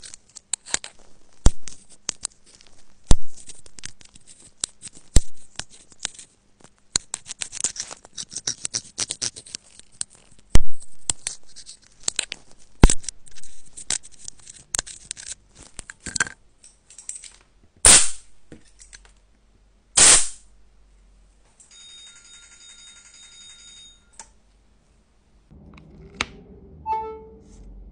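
A metal pick scrapes and picks packed lint out of an iPhone's Lightning charging port, making a run of sharp clicks and scratchy scrapes. About eighteen and twenty seconds in come two short hissing bursts, followed by a steady tone for a couple of seconds.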